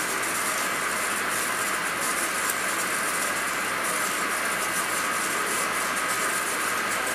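Engine lathe running steadily with a high-speed steel tool cutting an eccentric (offset) diameter on a weld-repaired steel shaft: an even whirring hiss of the machine and the cut.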